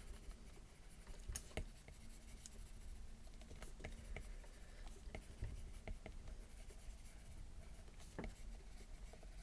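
Faint stylus strokes on a tablet screen while painting fur: light scratching with scattered irregular taps and clicks of the pen tip.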